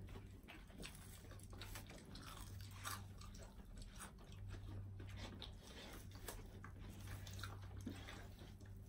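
Several people eating crispy fried chicken by hand: faint crunching bites and chewing, heard as scattered small crackles, over a steady low hum.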